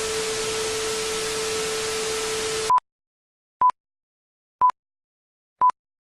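Static hiss with a steady low tone under it, cutting off suddenly just under three seconds in, followed by short high beeps about once a second.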